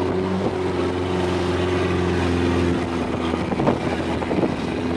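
Motorboat engine running steadily under way, a low droning note with a rushing hiss of wind and water over it. The lowest part of the engine note shifts about halfway through.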